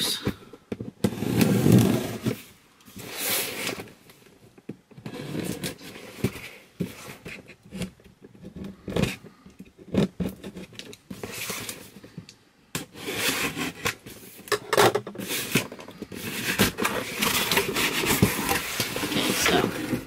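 A cardboard box being opened by hand: packing tape slit with a pointed tool, then flaps and contents handled, making irregular scraping, tearing and rustling with scattered short knocks.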